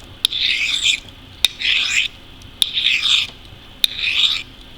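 Knife blade drawn along a Chicago Cutlery sharpening steel in four scraping strokes, about one a second. Each stroke opens with a sharp click of blade meeting steel. The edge is being honed smooth of burrs.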